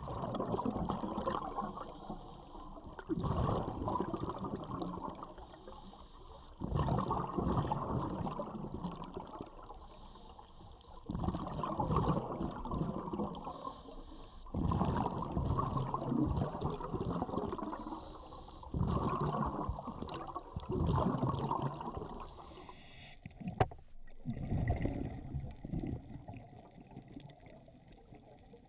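Scuba regulator exhaust bubbles heard underwater: a gurgling rush of bubbles with each exhaled breath, about every three to four seconds. A single sharp click comes late on.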